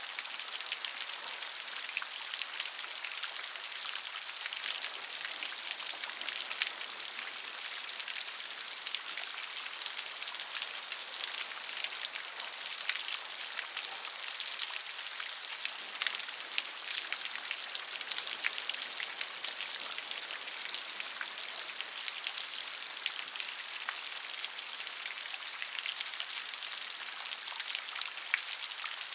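Steady rain with many small drop ticks: an even hiss.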